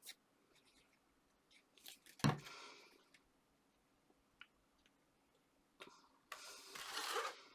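Card stock being handled and pressed into place on a work surface: a sharp tap about two seconds in, then about a second of papery rustling near the end.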